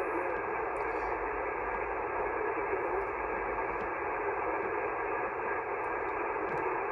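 HF ham transceiver's receiver hiss on single sideband: a steady band noise, cut off above and below like a narrow voice channel, heard through the radio's speaker while nobody is transmitting.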